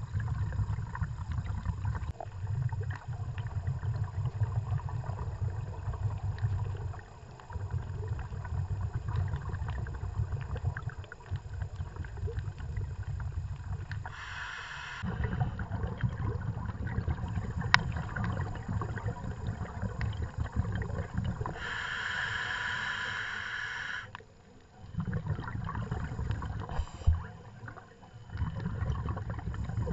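Scuba diver breathing through a regulator, heard underwater: a low bubbling rumble of exhaled bubbles that drops away briefly every few seconds. It is joined twice by the hiss of a breath drawn through the regulator, once short and once for about two seconds. A sharp click sounds near the end.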